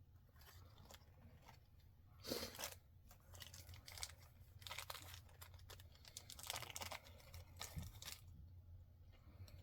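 Packaging being handled and torn open, in several short rustling bursts starting about two seconds in.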